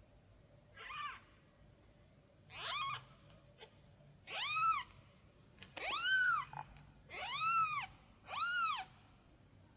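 Newborn kitten, eyes still closed, crying about six times in a row: thin, high mews that rise and fall in pitch, growing louder and longer toward the end. It is a young kitten calling out for its mother.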